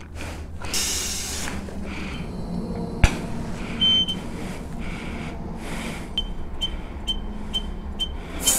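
A steady low hum with soft breathy hisses coming and going, a sharp click about three seconds in, and a run of short high beeps, about two a second, near the end.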